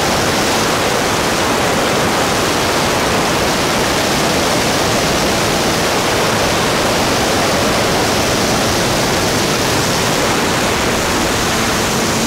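Loud, steady rush of airflow and engine noise aboard a SeaRey amphibian light aircraft in flight, with a faint engine hum becoming audible near the end.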